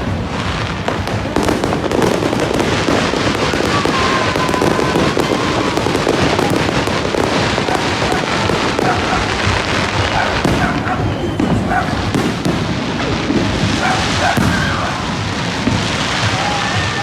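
Fireworks display going off continuously: a dense run of bangs and crackling bursts in quick succession.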